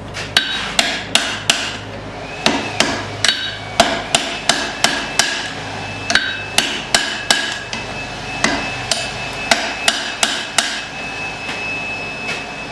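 Hand hammer striking hot steel on an anvil, forging the eye of a wrapped-eye axe head around a drift. Repeated blows come about two to three a second with brief pauses, each with a short metallic ring.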